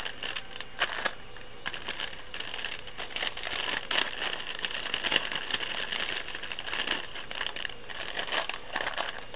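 Plastic packaging crinkling and rustling, with irregular crackles and clicks, as it is handled to get flowers out.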